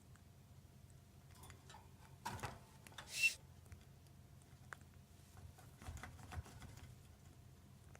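Senegal parrot giving a short, hissing sniff, its imitation of a person drawing breath through the nose, which the owner first took for abnormal breathing. A softer rustle comes just before it, and a few light clicks and taps follow later.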